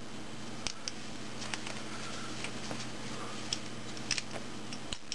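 Scattered light, sharp clicks at an irregular pace over a steady low hum.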